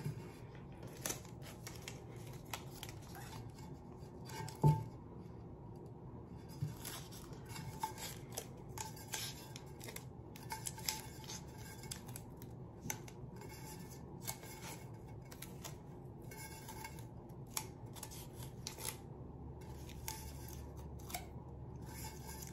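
Blue painter's tape being pressed, peeled and smoothed onto a stainless steel tumbler: irregular light crackles, rustles and small clicks, with one louder knock about five seconds in.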